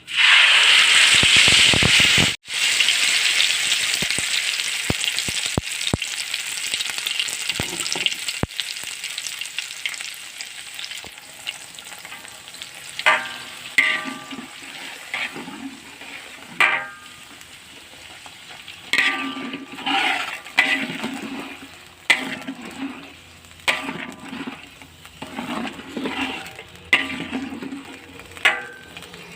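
Blended paste dropped into hot oil in a large wok, sizzling loudly at once and slowly dying down. From about halfway, a spatula stirring and scraping the wok in short repeated strokes about once a second.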